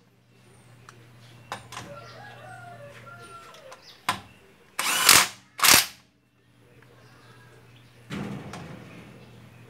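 Bosch cordless impact wrench firing short hammering bursts on a car's wheel lug nuts: two loud bursts about five and six seconds in, and a weaker one just after eight seconds. A bird calls in the background a couple of seconds in.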